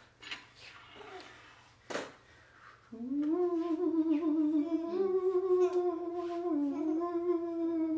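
A voice humming one long, nearly level note that begins about three seconds in, after a short click.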